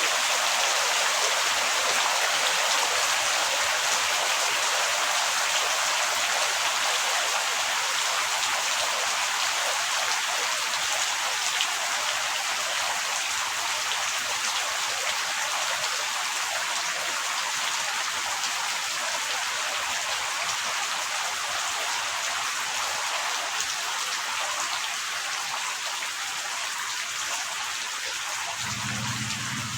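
Heavy rain falling steadily, a dense even hiss of drops that eases slightly in loudness. A low hum comes in near the very end.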